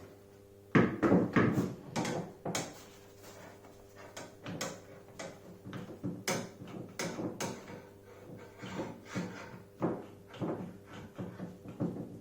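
Irregular knocks and clicks of clamps being fitted and tightened on a wooden chair frame over a padded upholstered panel, with a faint steady hum underneath.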